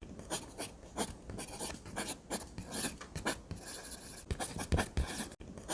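Faint, irregular rustling and scratching with a few soft clicks: something being handled close by.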